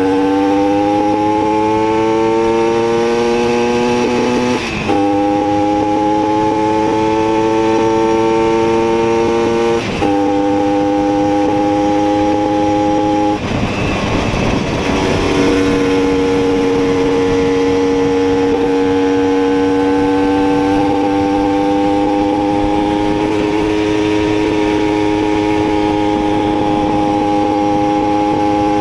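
Simson moped's big-bore two-stroke single-cylinder engine under way. The note climbs slowly through each gear and drops back with quick upshifts about five and ten seconds in. It breaks up briefly around halfway, then holds a steady cruising pitch, with wind rushing over the microphone.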